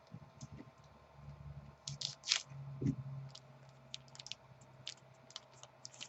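Faint crinkles and light clicks of trading cards and a foil card-pack wrapper being handled and opened, scattered and irregular, with a brief louder crinkle a little over two seconds in. A faint low hum runs underneath.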